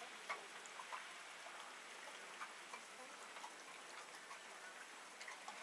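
A horse's lips and tongue licking from a person's palm: faint, irregular wet clicks and smacks.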